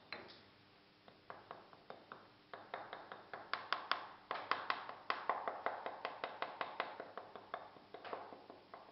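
Rapid light metal taps, about five a second, of a small hand tool against the pattern bedded in a sand-filled moulding flask, rapping the pattern loose from the sand. The taps start about a second in, are loudest in the middle and thin out near the end.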